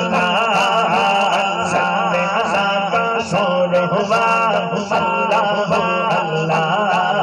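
A male reciter chanting a naat (Urdu devotional poem) with no instruments, drawing out long wavering notes into a microphone over a steady low hum.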